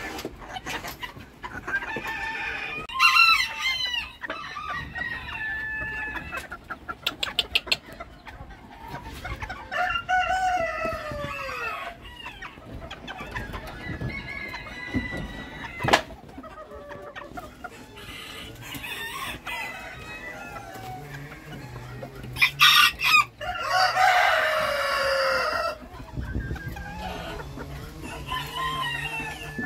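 Chickens clucking and calling, with roosters crowing several times; the longest crow comes near the end.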